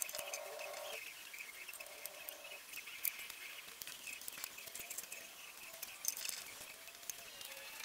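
Faint outdoor ambience of birds and insects chirping, with short pitched calls in the first couple of seconds and a few soft clicks.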